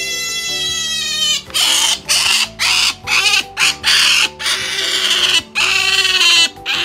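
Asian small-clawed otter begging for fish. A high, held whine comes first, then from about a second and a half in a rapid run of loud, harsh squeals with short breaks between them.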